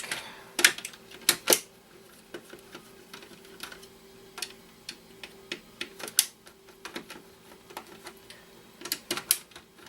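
Irregular small clicks and clatter of screws, a screwdriver and plastic console parts being handled while a Nintendo GameCube's casing screws are taken out. A few louder clicks stand out, about half a second in, around a second and a half, near six seconds and near the end.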